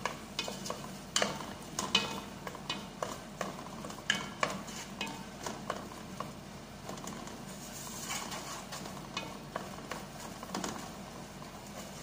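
Wooden spoon stirring and mashing chopped tomatoes in an aluminium cooking pot, with irregular knocks and scrapes of the spoon against the pot, over a low sizzle of the tomatoes cooking.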